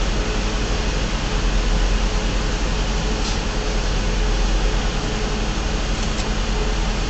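Idling semi-truck diesel engines heard from inside a truck cab: a steady low rumble under an even hiss.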